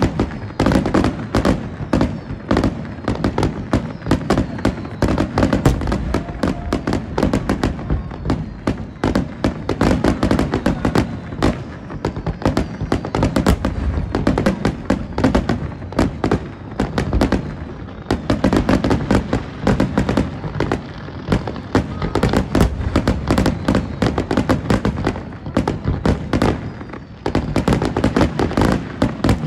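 Aerial fireworks display: a dense, continuous barrage of shell bursts and crackling, many bangs a second, easing briefly near the end before picking up again.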